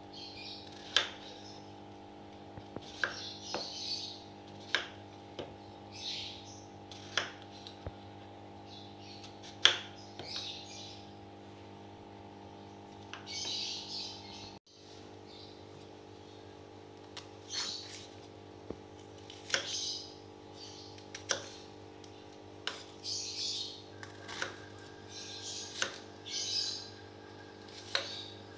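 Kitchen knife chopping cucumber on a wooden cutting board: sharp, irregular knocks of the blade on the wood. Birds chirp in between, over a steady hum.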